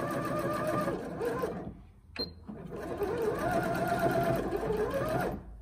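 Janome 1050DC computerized sewing machine sewing a straight stitch through fabric: the motor whirs and the needle stitches rapidly. It runs in two stretches, with a brief stop and a sharp click between them about two seconds in. It stops shortly before the end.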